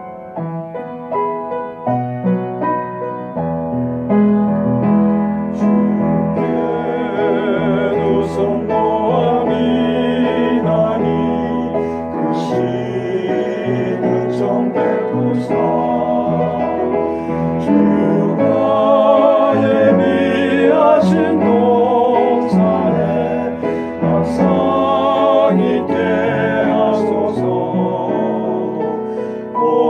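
Small vocal ensemble singing a gospel song with vibrato over piano accompaniment. The piano plays alone at first, and the voices come in about three or four seconds in.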